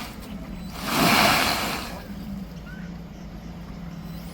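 Tata Harrier EV moving over rough ground: a rush of noise swells about a second in and dies away by two seconds, over a faint steady hum.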